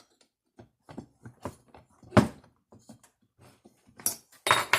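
Scattered clicks and knocks of tools and parts being handled during hands-on disassembly of a chainsaw's engine. One sharp knock comes about two seconds in, and a few louder knocks come near the end.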